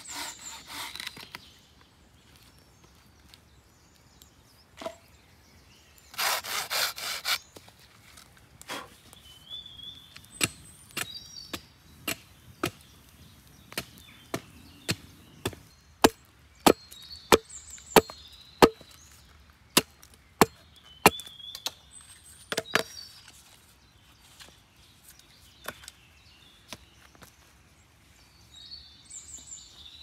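Green wood being worked by hand: a few rasping saw strokes near the start and again around six seconds, then a long run of sharp chopping strikes of a blade into a pole, about one or two a second, loudest in the middle, cutting a notch.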